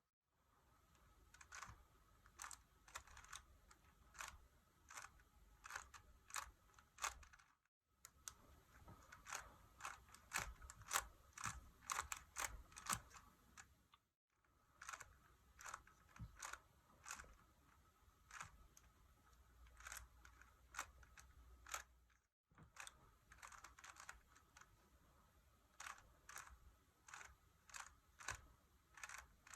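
Faint, irregular clicks and clacks of a Rubik's cube's layers being turned by hand, at times several a second, with a few short stretches of dead silence.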